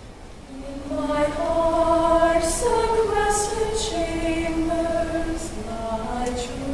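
Women's choir singing unaccompanied, entering about half a second in with several voices in harmony, sung words with crisp 's' sounds.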